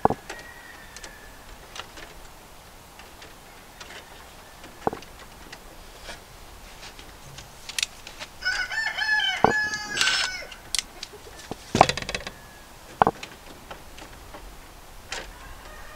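A rooster crows once, a call of about two seconds starting about eight and a half seconds in. Scattered sharp clicks and knocks come from hand work on an electrical breaker panel.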